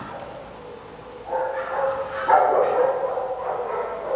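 Dogs barking, the calls starting about a second in and loudest around the middle.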